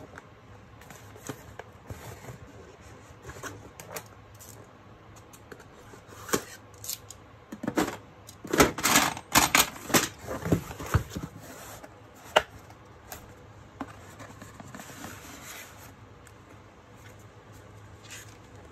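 Scattered clicks and knocks from handling the Razer Huntsman Mini keyboard and its packaging, with a burst of louder clattering about eight to eleven seconds in.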